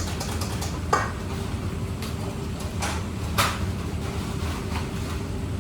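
Kitchen utensils and dishes being handled and set down: three short knocks and clinks, the loudest a little past halfway, over a steady low hum.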